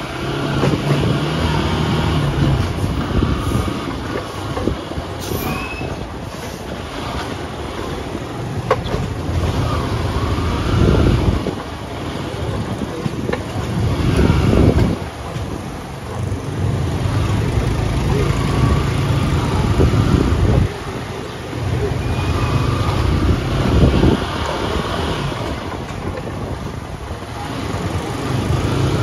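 Vehicle engine running at a steady pitch while travelling through city traffic, with dense road noise and loud low rumbles every few seconds.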